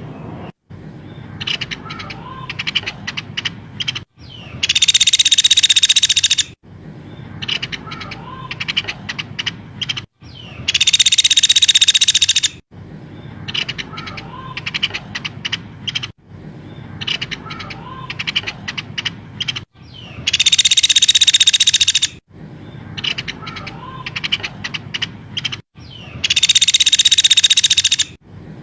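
Recorded songbird song from a bird-training (masteran) track: four loud, high, rapid buzzing trills of about two seconds each, repeating every six to nine seconds, with quick chirps, clicks and short whistles between them.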